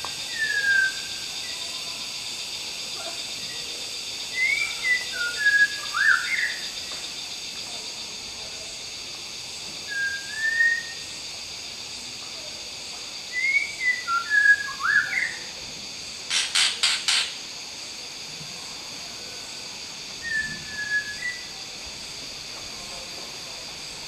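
White-rumped shama singing short, clear whistled phrases in five bursts, over a steady high-pitched hiss. A brief rapid rattle of clicks comes about two thirds of the way through.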